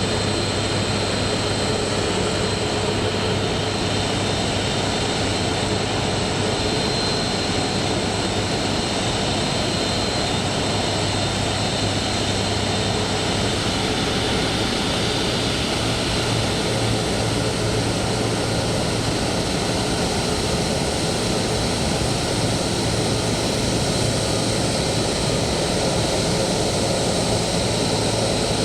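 Jet airliner engines running steadily at low power, a constant rushing noise with a high whine over it.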